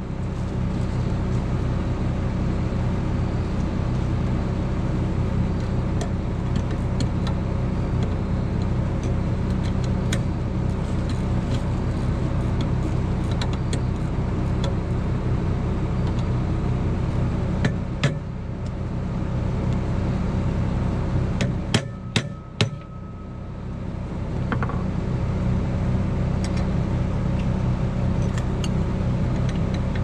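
Engine running steadily at a constant speed. A sharp knock comes about two thirds of the way through, and a quick cluster of knocks follows a few seconds later.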